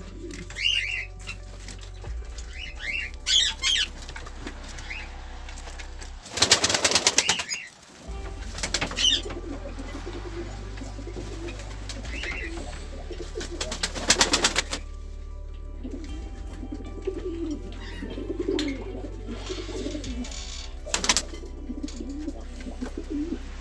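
Pigeons cooing in a loft, with two loud bursts of wing-flapping, one about six seconds in and one near the middle. High chirps from canaries come in during the first few seconds, over a low steady hum.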